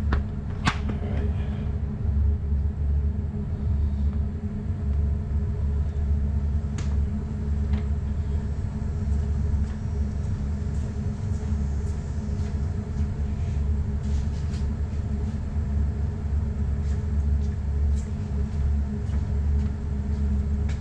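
Steady low mechanical hum and rumble, with a few faint clicks and knocks.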